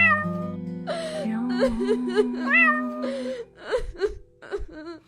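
A cat meowing several times, the clearest call about halfway through, over background music with held notes. The music drops out after about three and a half seconds, leaving a few fainter short sounds.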